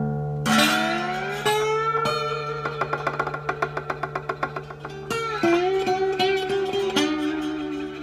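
Solo acoustic guitar playing: a chord with notes sliding up in pitch about half a second in, a run of fast repeated picked notes, then fresh strummed chords with a slide about 5 seconds in and again near 7 seconds, ringing out.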